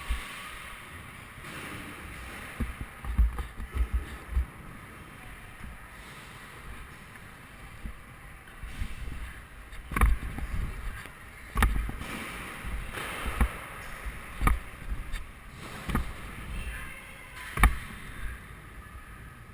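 Scooter riding: a low, uneven rumble with several sharp clacks.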